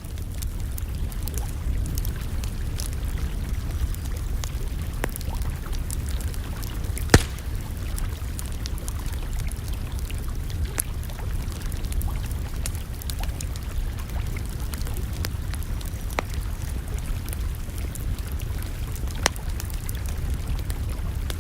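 Campfire burning, with scattered crackles over a steady low rumble. There is a loud sharp pop about seven seconds in and another near the end.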